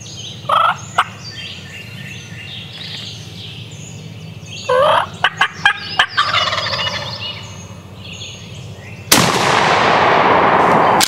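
Wild turkey gobbler gobbling, about half a second in and again near five seconds, with small birds chirping in the background. About nine seconds in, a sudden shotgun blast is followed by about two seconds of loud, steady rushing noise as the shot gobbler goes down.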